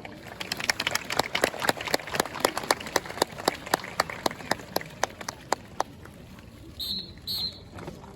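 Scattered hand clapping from a small audience, sharp separate claps that thin out and stop after about six seconds. Two short high chirps follow near the end.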